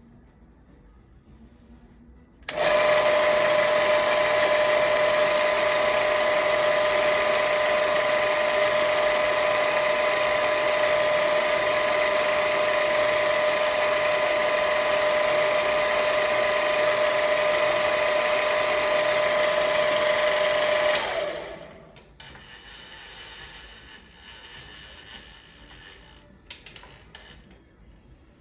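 Milling machine motor and spindle starting up suddenly and running with a steady, even whine, then switched off and winding down over about a second. Quieter scattered clattering follows.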